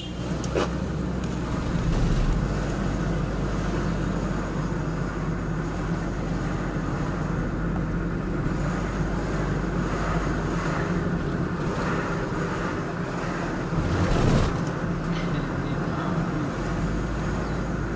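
Car engine and road noise from a car driving slowly along a street, a steady low drone. A brief louder noise comes about fourteen seconds in.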